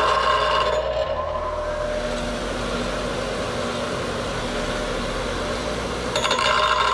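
Bench grinder running with its wheel grinding into a six-piston brake caliper. The grinding stops about a second in, leaving the grinder motor spinning freely with a steadier, lower running sound. The grinding starts again about six seconds in.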